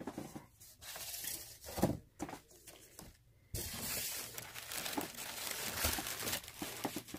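Plastic air-cushion packing crinkling as it is handled and pulled out of a cardboard shipping box. There are scattered rustles at first, then a longer stretch of steady crinkling from about three and a half seconds in.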